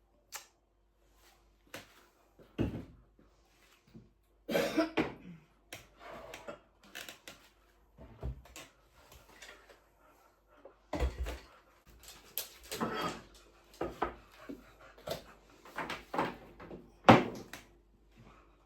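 Irregular knocks, clicks and rustles of kitchen items being picked up, moved and set down during cleaning, with one louder knock near the end.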